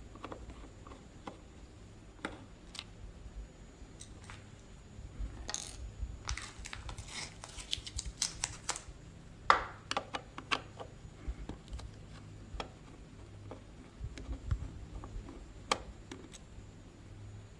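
A screwdriver working small screws out of a steel bracket: faint, scattered light metallic clicks and scrapes, busiest in the middle, over a faint steady low hum.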